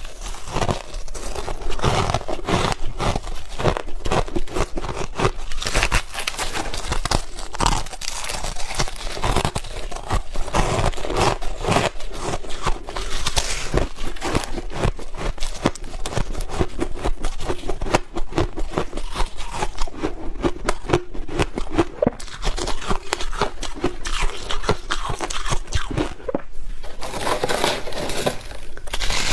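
Close-up biting and chewing of crunchy, powdery freezer-frost ice: a dense, continuous crackling crunch of ice breaking between the teeth.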